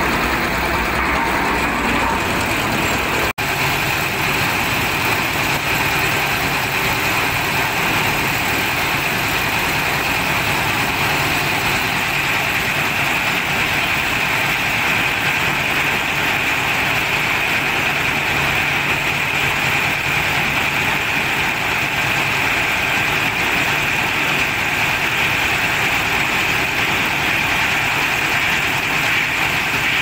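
Concrete mixer's 10 hp diesel engine running steadily, turning the mixing drum. The sound cuts out for an instant about three seconds in.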